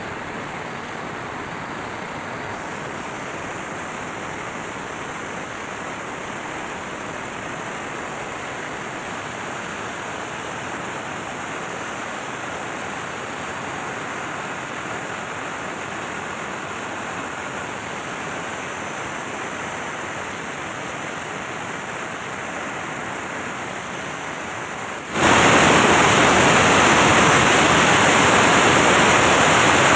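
Engine-room noise from a running MAN B&W auxiliary diesel generator engine: a steady, dense roar with no distinct beat. Near the end it abruptly becomes much louder and stays loud.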